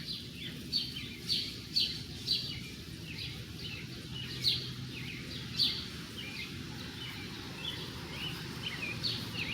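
Small birds chirping: short, high, falling chirps, several a second at first and then more spaced out, over a faint steady low hum.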